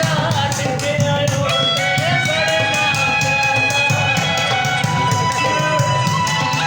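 Music: a Punjabi song with singing and held melodic notes over a quick, steady beat.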